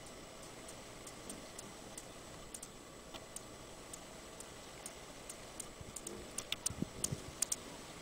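A series of sharp, irregular high ticks that come more often toward the end, with wind buffeting the microphone in the last second or two.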